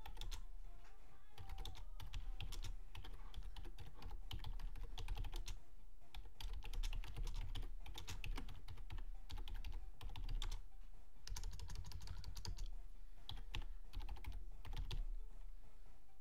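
Typing on a computer keyboard: quick runs of key clicks with short pauses as a sentence is typed out.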